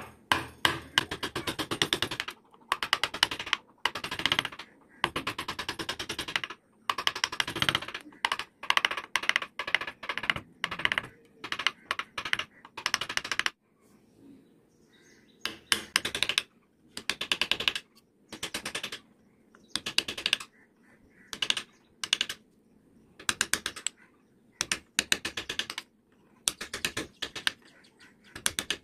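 Hand carving gouge cut by hand into wood, stroke after stroke: each cut is a short, crackly chattering scrape, from a fraction of a second to about a second and a half, with brief pauses between and a longer pause about halfway through.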